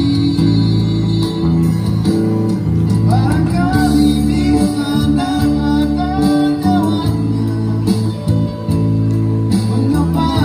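Live band playing amplified through PA speakers: electronic keyboard and guitar over a steady bass line, with a singing voice carrying the melody from about three seconds in to about seven seconds in.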